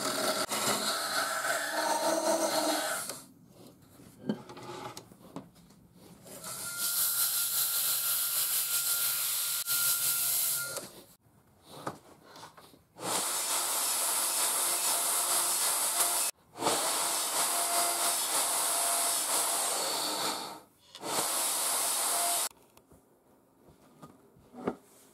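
A wood lathe spinning a walnut spindle while a hand-held chisel cuts it, for about the first three seconds. Then a table saw runs in several long stretches with short quiet breaks between them, a steady hiss-like noise with a faint whine.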